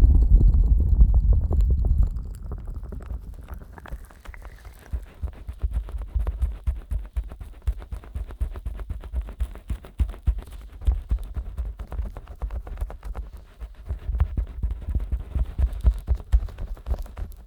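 Fingers rubbing and massaging the silicone ears of a 3Dio binaural microphone, slicked with Vaseline. A heavy low rumble for the first two seconds gives way to a dense run of quick sticky clicks and soft low thumps.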